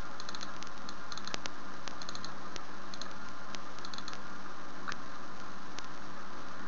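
Computer mouse clicking: scattered small clicks, some in quick pairs and groups, over a steady microphone hiss.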